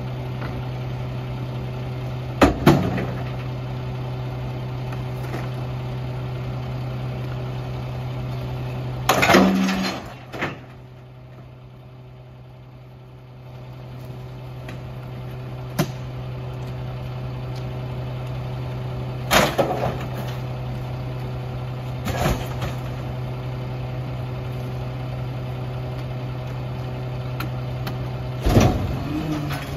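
Mack LR garbage truck idling steadily, with about six loud crashes and clatters as bulky junk such as boxes and plastic lawn chairs is thrown into the Heil 5000 rear loader's hopper.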